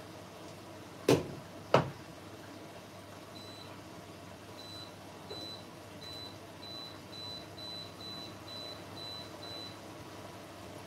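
Touch controls of a glass-top electric cooktop beeping as they are pressed: about ten short, high beeps at roughly two a second. Two sharp knocks come about a second in and again just under a second later.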